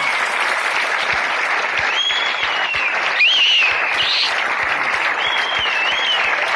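A crowd applauding steadily, with several shrill whistles rising and falling over the clapping.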